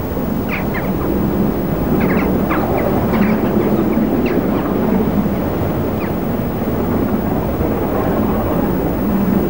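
Gresley K4 three-cylinder steam locomotive working a train up a long climb, heard from a distance as a steady exhaust rumble mixed with wind noise on the microphone. A few short, high bird chirps come through in the first half.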